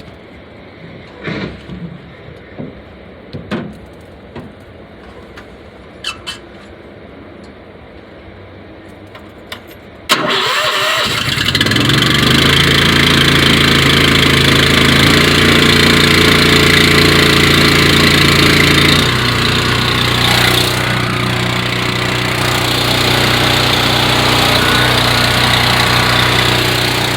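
Gas pressure washer engine key-started about ten seconds in; it starts abruptly and then runs steadily, its note shifting slightly about nineteen seconds in. Before the start there are a few light clicks and knocks.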